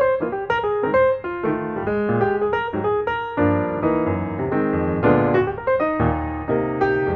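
Background piano music, a steady run of single notes over sustained lower notes.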